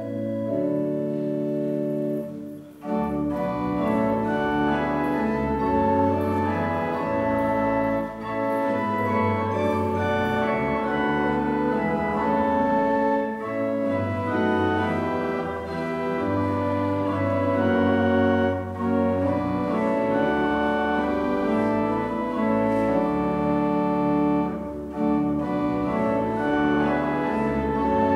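Organ playing slow, sustained chords over a low bass line, the notes held and changing every second or two.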